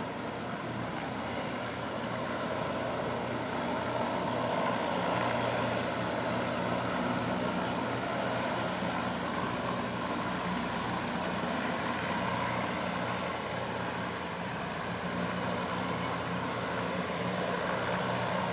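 Distant engines droning steadily: a low, even hum under a wash of noise.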